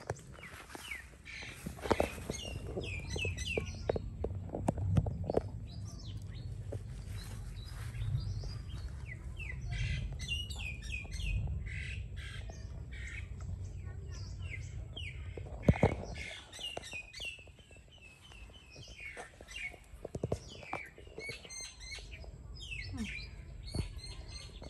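Small birds chirping: many quick, short, high calls scattered throughout, over a low steady rumble, with one sharp tap about two-thirds of the way through.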